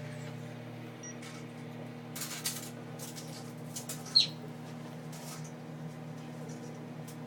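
Microwave oven running with a steady low hum, broken by a few short crackles and one brief, sharp, falling chirp a little past the middle.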